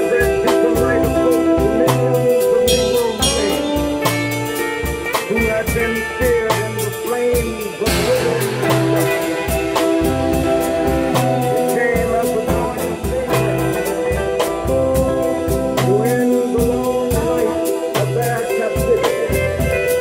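Live band music: a drum kit keeps a steady beat with busy cymbals under sustained keyboard chords and electric guitar, with a low bass note recurring every couple of seconds.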